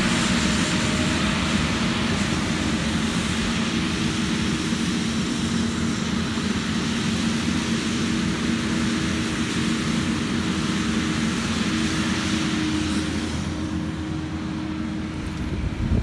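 Skid steer's diesel engine running steadily as the machine carries logs in its grapple. The sound eases a little near the end.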